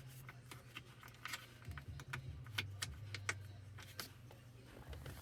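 Faint, irregular light clicks and rattles of a small screw and screwdriver being fitted into plastic console trim, over a low steady hum.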